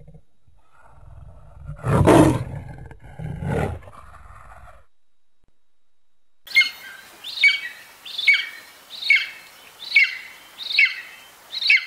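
A leopard's rasping roar: two loud calls about a second and a half apart. After a short pause, a bald eagle's high piping calls follow, about seven in a row, each note falling in pitch.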